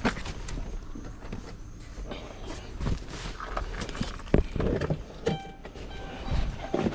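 Clicks, knocks and handling noises of work in and around a minivan, with a short pitched electronic tone about five seconds in.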